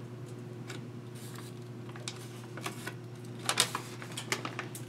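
Raw bacon strips being lifted and woven by hand on a sheet of aluminium foil, with light crinkling and clicking of foil and paper wrapping and a few sharper crackles about three and a half seconds in. A steady low hum runs underneath.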